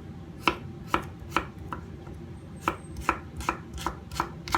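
Kitchen knife cutting a cucumber on a cutting board: about ten sharp knocks of the blade striking the board, in two runs with a short pause around the middle.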